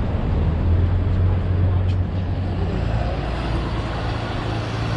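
Steady low rumble of a moving road vehicle's engine and tyres, with faint voices in the background near the end.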